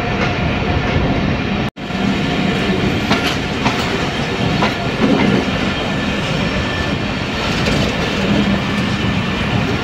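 Passenger train running along the track: a steady rumble with the wheels clicking over rail joints now and then. The sound drops out for an instant about two seconds in.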